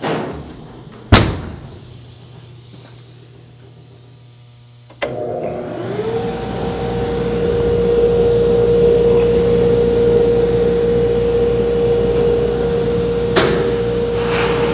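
A sharp knock about a second in, then about five seconds in the soda blast cabinet's 2 hp motor starts, its whine rising quickly to a steady pitch, and runs on with a loud rushing of air.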